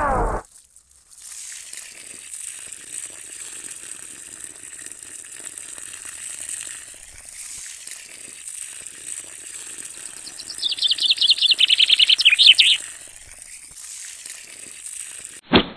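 A thin stream of water trickling steadily from the spout of a miniature water-tank trailer onto wet sand. About ten seconds in, a loud, rapid, high trill sounds for around two seconds, and a short, sharp sweep comes just before the end.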